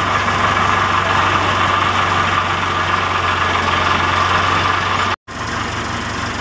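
Diesel engine of heavy equipment idling steadily with a low hum. It cuts out for an instant about five seconds in and comes back slightly quieter.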